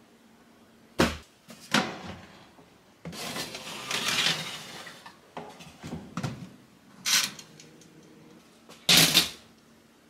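A metal baking sheet pan full of sponge batter dropped flat twice, two sharp knocks that knock air bubbles out of the batter. Then a long scrape and clicks as the pan goes into a countertop oven and the door shuts, and a loud clatter near the end.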